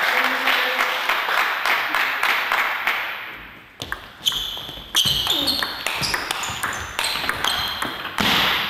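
Table tennis rally: the celluloid ball clicks off the bats and the table about twice a second, each hit with a short high ping. Before the rally starts, about four seconds in, crowd noise in the hall dies away.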